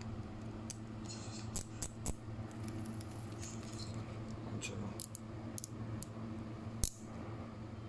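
Daiwa Magforce magnetic brake dial on a baitcasting reel being turned by thumb, giving a scattered series of light clicks as it steps between detent positions. The dial now holds its setting instead of springing back, its loose detent spring having been repaired.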